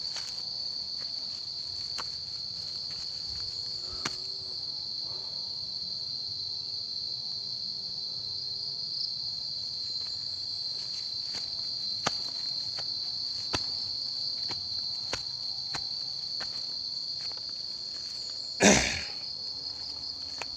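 A steady, high-pitched insect chorus drones without a break. Scattered light ticks of footsteps on a rocky trail come through, and a single loud thump lands near the end.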